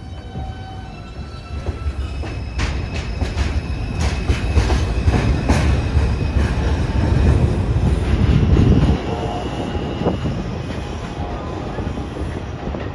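New York City Subway train running through the station: a heavy rumble that builds to its loudest about eight seconds in and then drops off, with wheels clicking over rail joints and a thin high squeal.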